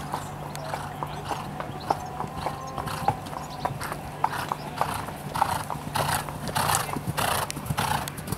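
Horse cantering on a sand arena surface, its hoofbeats coming evenly a little under two per second. The sound grows louder and rougher in the second half.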